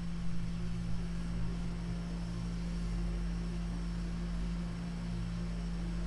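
Steady low electrical hum with a faint even hiss.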